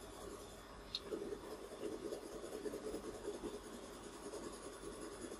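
Coloured pencil shading lightly on drawing paper: faint, soft scratching strokes under light pressure, with one small tick about a second in.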